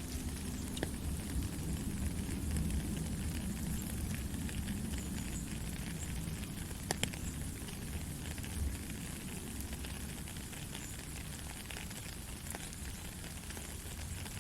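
Steady rain: an even hiss with a low rumble underneath and scattered sharp drop ticks, one louder about seven seconds in.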